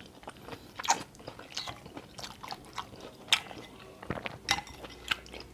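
Close-up eating sounds: a metal spoon clinking and scraping against a glass bowl of soupy stew, with chewing. A scatter of short sharp clicks, the loudest a little past three seconds in.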